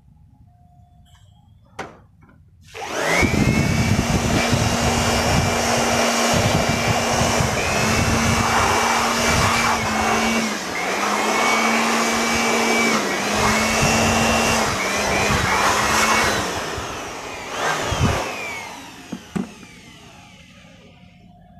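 Handheld electric air blower switched on with a click and running loud and steady, a motor whine over rushing air, its pitch dipping briefly a few times; it winds down near the end, followed by a couple of clicks.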